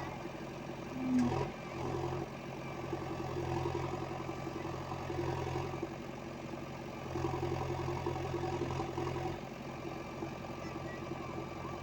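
A heavy earth-moving machine's engine running steadily with a low drone, with a brief louder sound about a second in.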